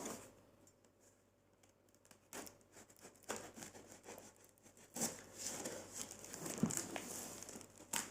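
Packaging being handled: crinkling and rustling with small clicks, sparse at first and busier in the second half.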